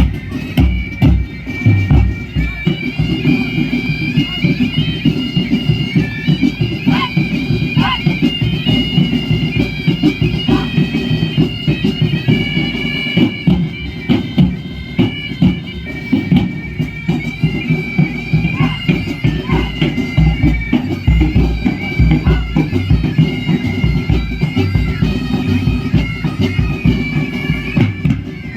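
Bagpipe music, held piping notes over a dense, steady drum beat.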